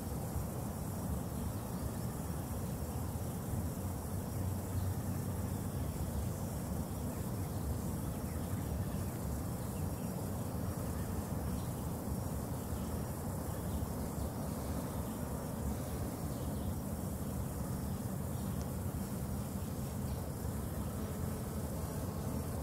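Steady outdoor background noise: a low rumble with a faint high hiss above it.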